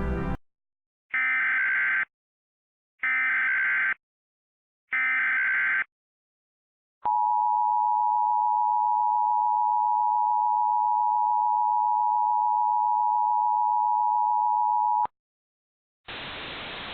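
Emergency Alert System activation for a Law Enforcement Warning: three short bursts of SAME header data tones, a pause, then the two-tone EAS attention signal held steady for about eight seconds before it cuts off. A faint hiss starts near the end.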